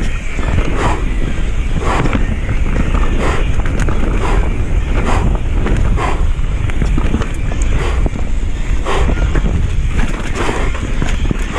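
Mountain bike riding fast down a muddy dirt trail: wind buffeting the action camera's microphone as a steady low rumble, over tyre and frame noise, with short rough hisses about once a second.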